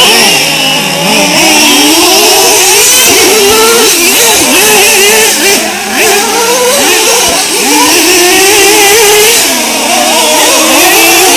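Loud, overlapping whine of several 1/8-scale nitro RC truck engines, small two-stroke glow engines, revving up and down as the trucks accelerate and lift off around the track.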